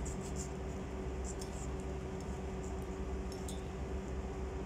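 Kitchen knife slicing through a lemon on a ceramic plate: a few faint clicks and scrapes as the blade meets the plate, over a steady low hum.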